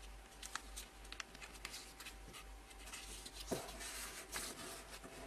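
Faint rustling and crinkling of a sheet of paper being folded and creased by hand, made of many small crackles.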